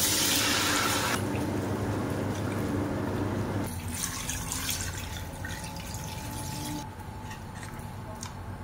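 Water pouring and splashing into a pot, loudest in the first second and fainter after about four seconds.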